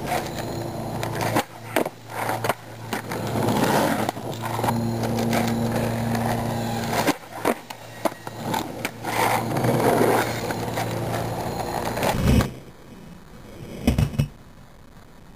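Skateboard wheels rolling over coarse asphalt with a steady rumble, broken by several sharp clacks as tricks are popped and the board lands. The rolling stops about twelve seconds in, and a few more loud clacks of the board hitting the street follow.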